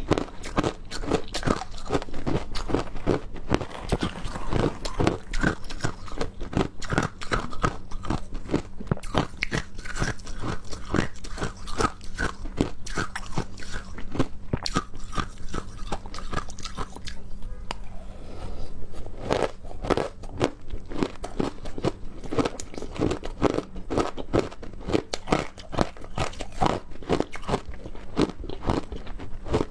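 Close-miked biting and crunching of frozen matcha ice, a rapid run of hard cracks and chewing crunches, with a brief pause about two-thirds of the way through.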